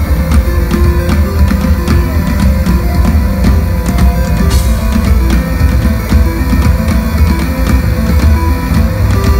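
A live band playing loud amplified music: a drum kit keeping a steady beat over heavy, deep bass and keyboards, with no singing.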